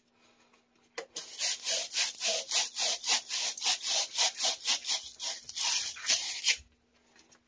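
Cut end of a copper water pipe being scrubbed clean with an abrasive pad before fitting, in quick back-and-forth strokes, about four a second. The scrubbing starts about a second in and stops abruptly near the end.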